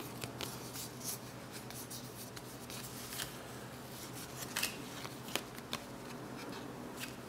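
Basketball trading cards being handled, each card slid off the front of a hand-held stack and tucked behind it. Quiet cardboard sliding and rubbing with occasional light clicks of card edges.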